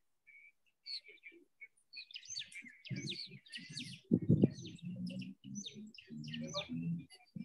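Small birds chirping and twittering in quick, busy calls. From about three seconds in, a louder low rumble runs underneath and is loudest near the middle.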